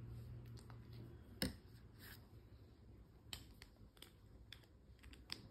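Near-quiet room with a handful of faint, scattered clicks and ticks; the sharpest comes about a second and a half in.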